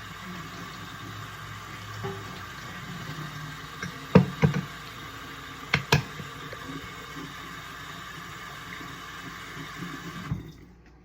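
Kitchen tap running steadily into a sink, with a few sharp knocks against the sink about four and six seconds in; the water shuts off suddenly near the end.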